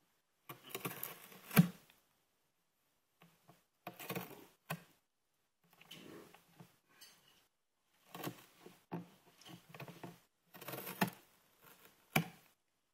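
A cat biting and tearing at the rim of a cardboard copy-paper box, in irregular bursts of ripping and crackling with a few sharp snaps of cardboard giving way.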